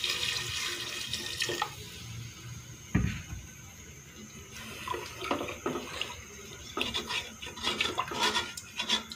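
Water being poured into a pressure cooker pot of chicken gravy, the pouring hiss dying away about a second and a half in. Then a single knock, and a wooden spoon tapping and scraping against the pot as the gravy is stirred.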